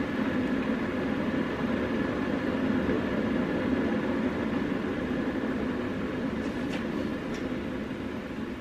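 Keurig coffee maker running just after being switched on: a steady mechanical hum that eases slightly near the end, with a few faint ticks.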